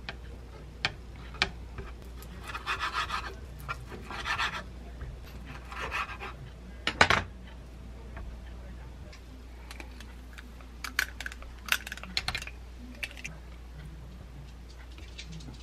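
Food being handled and cut on a wooden cutting board: a few scratchy rubbing strokes, then a sharp knock about seven seconds in. Light clicks follow as pieces are set down on a ceramic plate.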